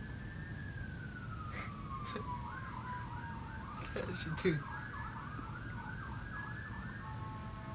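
Emergency-vehicle siren with a slow rising and falling wail that changes about halfway through to a fast yelp of about four sweeps a second, then to steady tones near the end. A few short sharp clicks come through, the loudest about four and a half seconds in.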